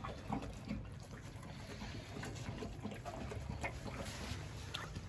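A Cane Corso eating soft pasta and kibble from a stainless steel bowl: wet chewing with many small scattered clicks, over the light patter of drizzle.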